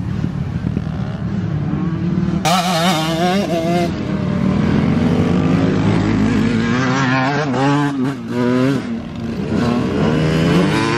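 Dirt bike engines revving on a motocross track, the pitch rising and falling again and again as the riders throttle up and back off.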